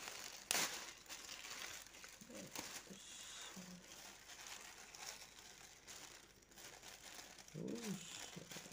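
Grey plastic mailer bag crinkling as hands pull it open and unwrap it, with one sharp, loud crackle about half a second in.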